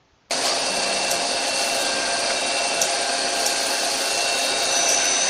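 Doosan CNC lathe running with its spindle turning: a steady hissing machine noise that starts suddenly about a third of a second in.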